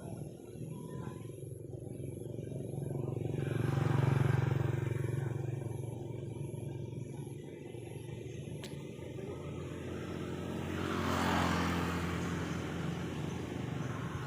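Motor vehicles passing on a road: a steady engine hum that swells as one goes by about four seconds in and another about eleven seconds in, the second with more tyre hiss.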